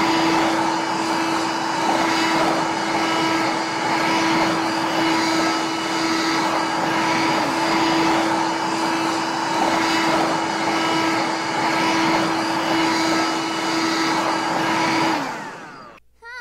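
Toy vacuum cleaner running: a steady whirring hiss with a constant hum, switching off about a second before the end, its pitch sagging as it stops.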